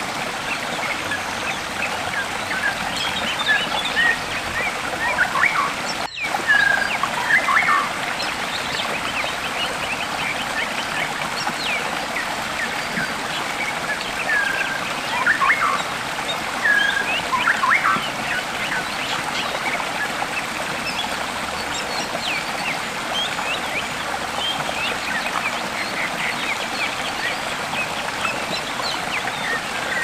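Shallow stream running over rocks: a steady babbling rush of water, with short chirps over it that grow louder a few times. About six seconds in, the sound drops out for an instant.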